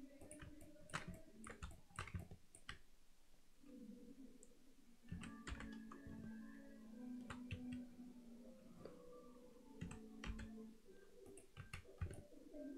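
Faint, scattered clicks of a computer mouse and keyboard being worked. A faint low hum comes in through the middle stretch.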